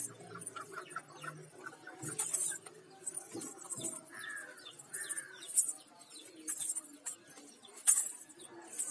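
Birds chirping, with a couple of short falling calls a few seconds in, over short bright bursts of high-pitched rustle or jingle that come about once a second.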